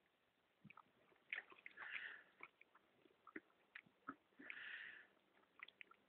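Horse drinking from a pond, faint sloshing and slurping of water at its muzzle: small clicks and drips, with two short splashy bursts, about two seconds in and again near five seconds.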